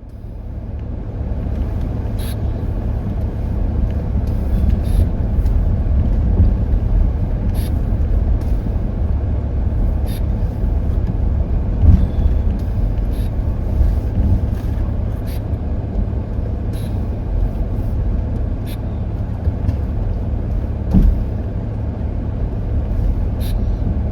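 Car interior road and engine noise while driving: a steady low rumble with a few faint ticks scattered through, fading in over the first second.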